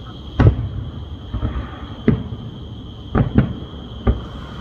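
Aerial firework shells bursting: five booms in about four seconds, the loudest about half a second in and two in quick succession about three seconds in.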